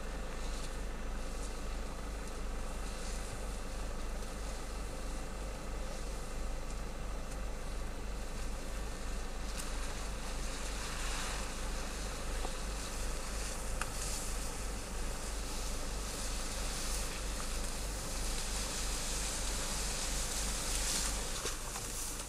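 Steady buzzing of insects over a constant low hum, with rustling and snapping in the bush that grows louder from about ten seconds in.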